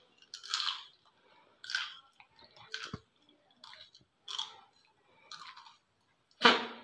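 A person chewing a whole raw green chilli, with about six crunches spaced roughly a second apart. Near the end comes a short, louder huff of breath, the loudest sound here.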